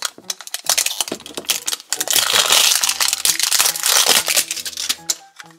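Clear plastic wrapping on a toy package crinkling and crackling as it is handled and pulled at, loudest in the middle and dying down near the end.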